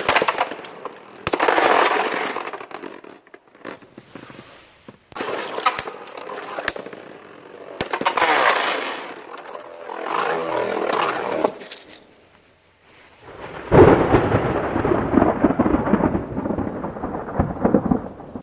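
Spinning Beyblade tops scraping and clashing, with sharp clicks of impact between stretches of grinding; a denser, continuous grinding starts about three-quarters of the way through.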